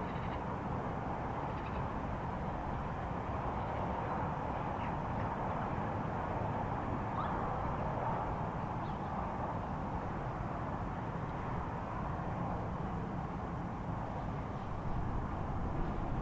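Steady outdoor rumble and hiss with a few faint, short bird chirps scattered through it.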